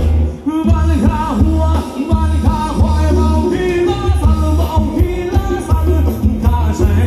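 Live band playing upbeat Thai ramwong dance music through a loud PA, with a heavy pulsing bass beat and a vocal melody line. The beat drops out briefly about half a second in, then carries on.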